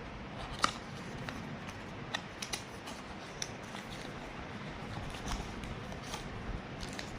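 Handling of the camera's box and its contents during an unboxing: a string of short clicks and light rustles at uneven intervals, the sharpest about two-thirds of a second in.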